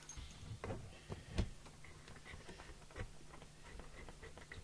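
Handling knocks and light rapid clicks as the aerial's coax plug is fitted and screwed onto the CB radio's antenna socket, with a faint steady hum underneath.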